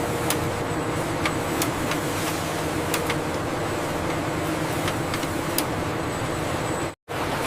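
Steady running hum of cable-making factory machinery, with scattered light clicks and ticks. The sound cuts out for an instant near the end.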